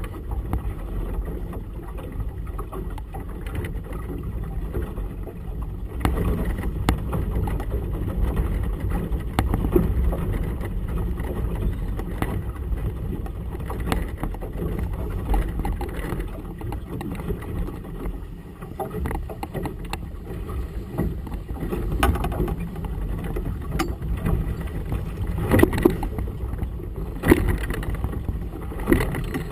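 Dull, steady rumble of wind and choppy harbour water around a small motorboat, with waves knocking against the hull; the knocks come louder and closer together near the end.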